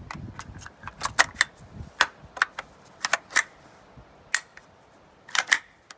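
Sharp metallic clicks and clacks, about a dozen spread irregularly through the first five seconds, from an Intratec Tec-22 .22 LR pistol and its magazine being handled.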